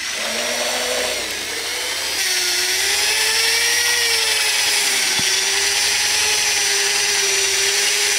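Corded electric drill with a paint-mixer paddle running steadily in a bucket of filtered used motor oil and diesel, blending the two fluids. About two seconds in its whine drops a little in pitch and grows louder, then holds steady.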